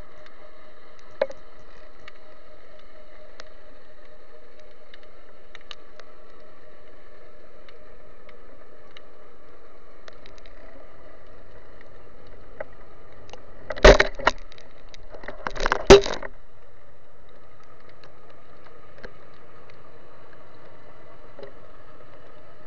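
Underwater sound through a speargun-mounted camera's housing: a steady faint hum with scattered small clicks, then two loud, short rushes of noise about two seconds apart past the middle.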